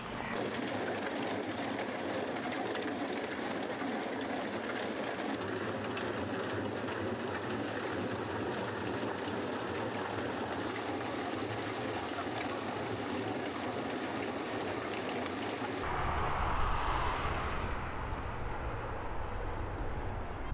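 Coal moving on a mine conveyor belt: a steady, even clatter of rock riding on the belt. About sixteen seconds in it cuts off abruptly and gives way to a duller, low rumble.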